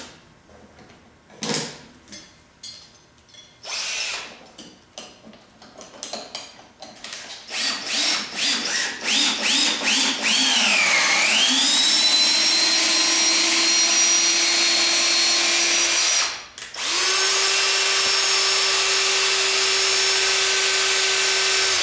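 Cordless drill spinning a nail-puller attachment to rip a screw out of wood. It starts with short trigger bursts and quicker pulses, then runs steadily. Its pitch dips under load about eleven seconds in and recovers, and it stops briefly before running steadily again.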